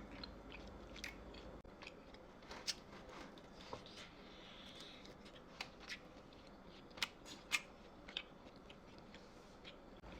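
Faint eating sounds: scattered sharp clicks and small crunches of chewing and handling food, a dozen or so spread irregularly over the stretch.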